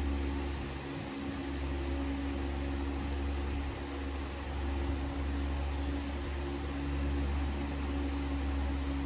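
Steady low hum of a running motor, with a couple of constant tones above it.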